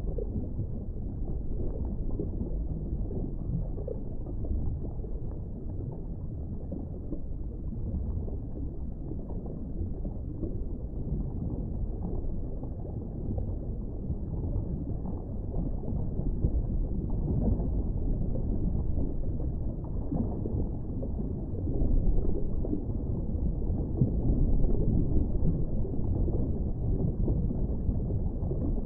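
Steady low water noise from a large reef aquarium's circulation, swelling a little louder twice in the last third.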